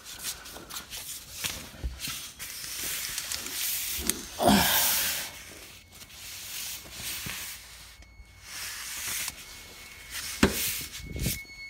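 A rag being handled and crumpled, with rubbing and rustling noises and a louder burst of hiss about four and a half seconds in.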